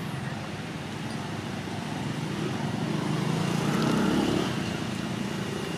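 A motor vehicle's engine passing nearby, a low rumble that grows louder about three to four seconds in and then fades.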